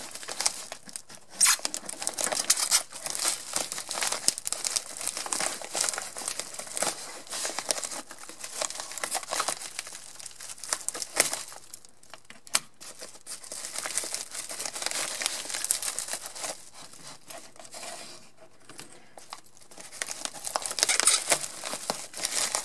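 Packing wrap crinkling and tearing as a parcel is unwrapped by hand, with steady rustling and a few louder sharp snaps.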